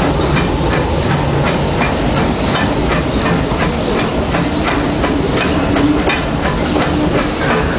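Steam locomotive E. P. Ripley, a 4-4-0, heard from its cab while running along the track. A steady loud rumble and rattle with a regular beat of about two to three sharp strokes a second, and a faint held tone partway through.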